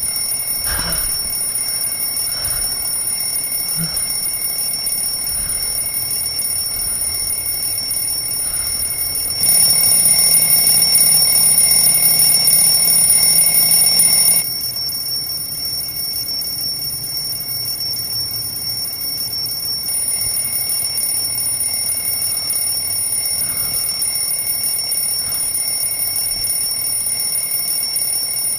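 Alarm clock ringing without a break, a steady high bell-like ring; it gets louder for about five seconds near the middle, then drops back.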